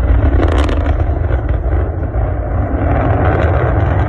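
Loud, steady, deep rocket rumble, with a brief crackle about half a second in.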